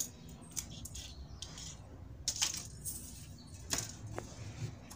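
A few scattered light clicks and clinks, about one a second, as the thin glass backlight tube and the metal back panel of a dismantled LCD monitor are handled.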